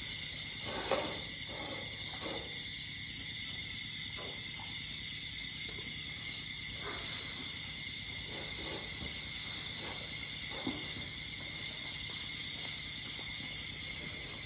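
Steady, high-pitched chorus of night insects, continuous throughout, with a few brief noises over it; the loudest comes about a second in.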